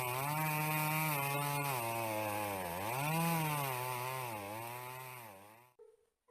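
Chainsaw engine running and revving, its pitch rising and falling, then fading away near the end.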